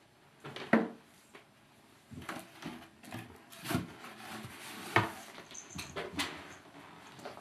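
Kittens at play, knocking and clattering against hard objects: a run of scattered knocks, the loudest about a second in and again about five seconds in.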